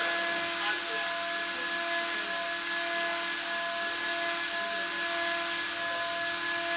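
Small cooling fan on an RC car's electronic speed controller running steadily with a constant whine and airy hiss, powered only by a 16-farad supercapacitor with the battery unplugged.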